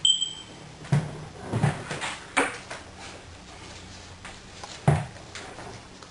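A short high beep, then a series of sharp knocks and clicks from objects being handled. The loudest come about a second in and again near five seconds.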